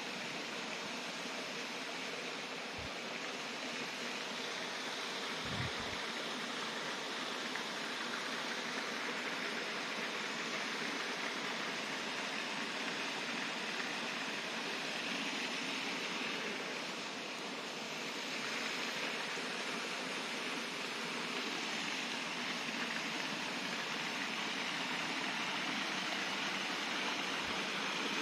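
Steady rushing of a small forest stream, growing slightly louder near the end, with a couple of brief low bumps early on.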